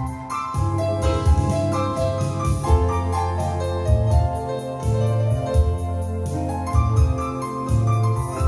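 Violin melody played over an electronic keyboard accompaniment with sustained bass notes.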